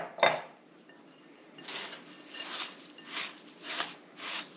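A silicone spatula and a metal utensil stir dry cookie crumbs and chopped pecans in a glass mixing bowl, giving a regular dry scraping of about one stroke every half to two-thirds of a second. The mixture is still dry. Two sharp knocks come at the very start.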